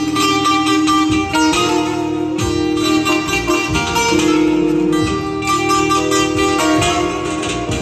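Azerbaijani saz, amplified, played with quick plectrum picking: a fast melody over a held drone note.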